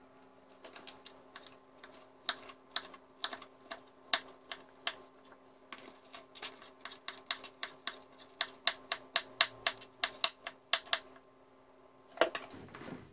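Kitchen knife chopping ham finely on a wooden cutting board: a run of sharp knocks of the blade on the wood, sparse at first and quickening to about four a second, stopping about two seconds before the end.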